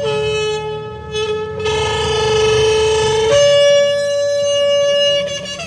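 Shofar blown in one long blast. A lower note is held for about three seconds, wavering in its second half, then it jumps to a higher note that is held for about two seconds more before it stops just before the end.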